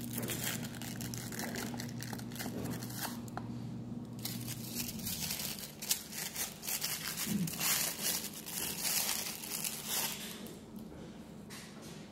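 Crinkly wrapping rustled and crumpled by hand as an ophthalmic lens is unwrapped, the crackling loudest and busiest in the second half.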